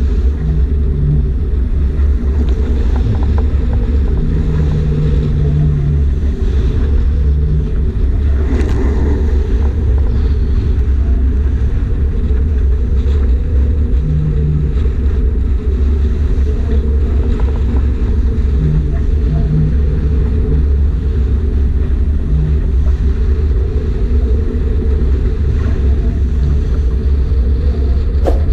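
Strong wind buffeting the microphone aboard a sailboat in heavy weather: a loud, steady low rumble, with a faint low hum coming and going.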